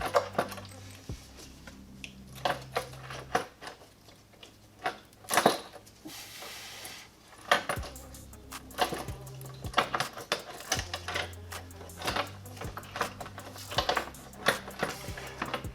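Metal hand tools and truck parts clinking and clattering, with a cluster of sharper knocks about five seconds in, over background music with a steady bass line.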